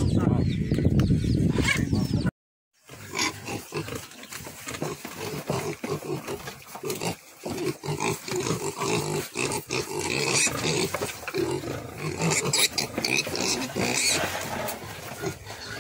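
A pen of young spotted piglets crowding together, grunting and squealing in a dense, irregular chorus. It starts after a brief silent cut a little over two seconds in. Before that there is a loud low rumble.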